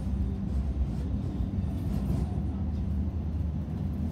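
Steady low running rumble of a Hong Kong Light Rail Phase 5 light rail vehicle, heard inside the car as it travels along the track.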